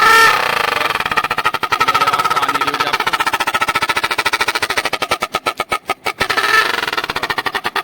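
Motorcycle exhaust blowing through a toy horn (bhopu) jammed into the silencer: a fast putting of exhaust pulses with a wavering, honking tone riding on it. Near the end the pulses slow and spread out as the engine eases off.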